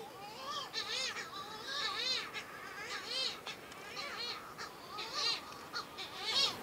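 Tītī (sooty shearwaters) calling from a nesting burrow at night: a repeated series of rising-and-falling calls, about one a second.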